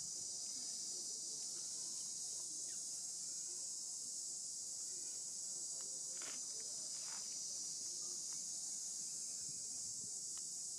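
Steady chorus of insects such as crickets or cicadas, a continuous high-pitched drone with no breaks. A couple of faint short sounds are heard about six and seven seconds in.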